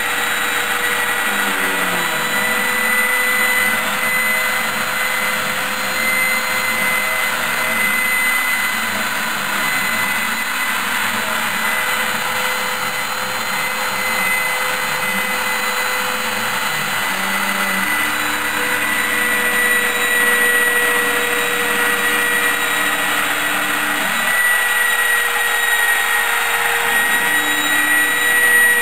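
Diginox Euclides Junior CNC machine running a cut: a steady high spindle whine, with the stepper motors' lower tones rising, falling and shifting pitch as the axes move.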